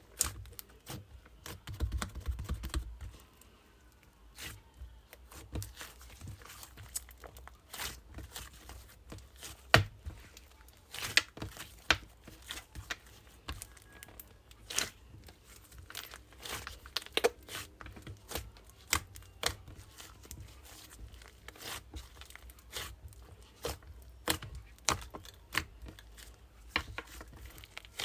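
Crunchy croissant-type pastry crackling and crunching in many irregular sharp snaps.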